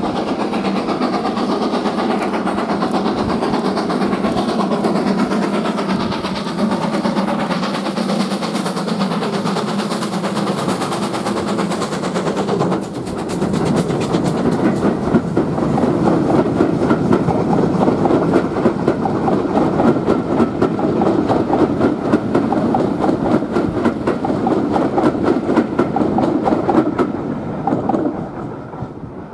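Steam locomotive hauling a passenger train approaches and passes beneath, exhaust beating. After a brief dip about halfway through, its coaches roll past with a rapid, even clickety-clack of wheels over the rail joints, loudest at this stage, fading away near the end.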